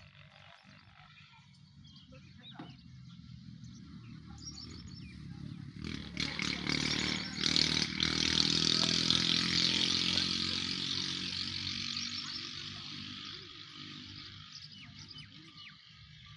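A motor vehicle passing: its engine sound grows louder, peaks about eight to ten seconds in, then fades away. There are a few sharp knocks around the middle.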